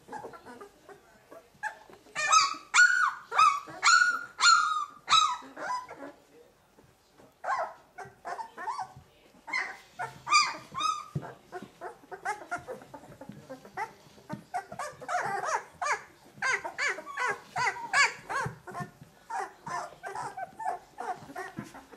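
Two-week-old Leonberger puppies crying and squealing, several at once. A run of about seven loud, high cries comes a couple of seconds in, and quicker, softer overlapping squeaks fill the second half.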